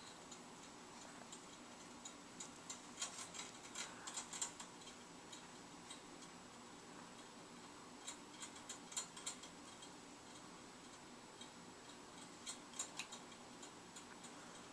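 Faint, irregular clicking and ticking from a Jolly Jumper baby bouncer's spring and doorway hardware as the baby bounces in it. The clicks come in three short clusters.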